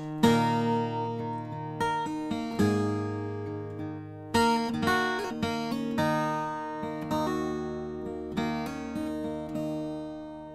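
Background music: an acoustic guitar strumming chords, each chord ringing and fading before the next.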